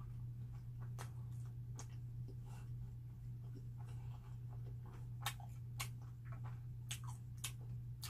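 Close mouth sounds of a person chewing onion bread: scattered wet clicks and smacks at irregular moments over a steady low hum.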